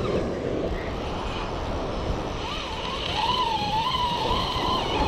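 Steady rush of ocean surf and wind on the microphone. About halfway in, a thin wavering whine joins it and rises and falls slightly in pitch until the end.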